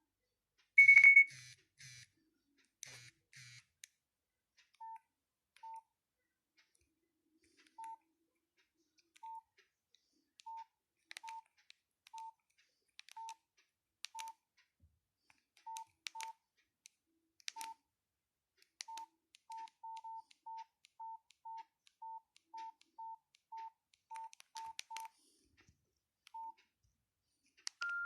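Nokia 6500 Slide keypad tones: short single-pitch beeps with faint key clicks as buttons are pressed one at a time, irregularly spaced and quicker in the second half. About a second in there is a louder, higher beep among a few short buzzing pulses.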